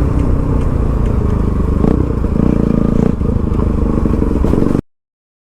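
Motorcycle engine running under way, its pitch shifting as the revs change. The sound cuts off abruptly near the end to complete silence.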